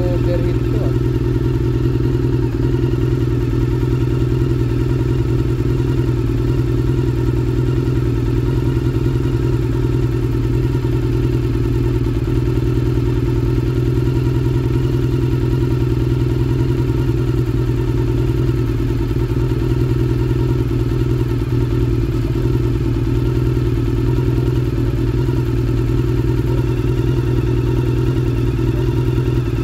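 Suzuki Impulse scooter's single-cylinder four-stroke engine idling steadily at an even pitch, with no revving.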